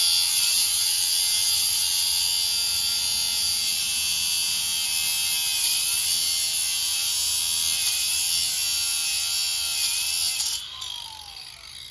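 Cordless angle grinder cutting through a steel coil spring: a steady high-pitched whine with slight dips in pitch as the disc bites. About ten and a half seconds in it is switched off and winds down with a falling tone.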